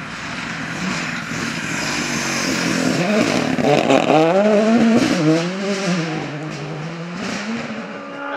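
Ford Fiesta rally car's engine revving hard at stage speed, its pitch climbing and dropping quickly through gear changes. It is loudest about four seconds in as the car passes close, then settles to a lower, steadier note.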